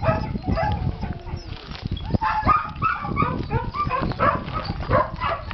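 A dog making short whines and yips, over repeated low knocks and rustling.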